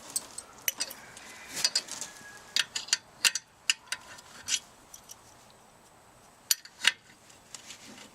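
Metal tools and parts clinking and clicking as they are handled, in scattered irregular knocks; the two sharpest clinks come a little past the middle.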